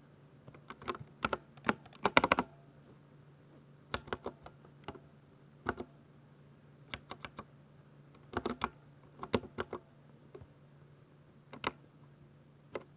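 Keystrokes on a 60% Ducky mechanical keyboard with silver linear switches, typed in short runs of quick clicks with pauses between them. The fastest and loudest run comes about two seconds in.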